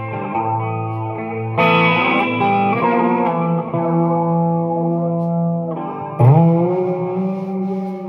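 Single-cutaway Les Paul-style electric guitar playing chords that are struck and left to ring, with a fresh chord about one and a half, three and a half and six seconds in, the last the loudest.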